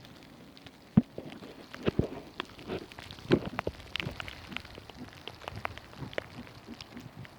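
Creek swollen with rain runoff, rushing with irregular splashes and drips over a steady hiss of water.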